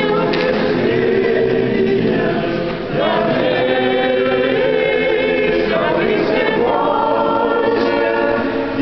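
Small church choir singing unaccompanied Russian Orthodox liturgical chant, in sustained multi-voice phrases with a short break about three seconds in and another near the end.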